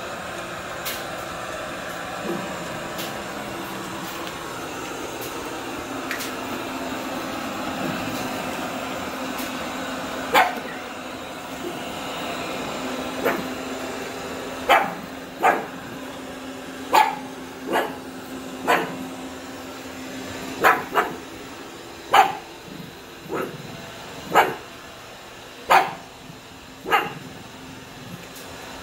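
A pug barking in short single barks, about fourteen of them, roughly one a second from about a third of the way in. Under the first part a robot vacuum cleaner runs with a steady hum that fades about two-thirds of the way through.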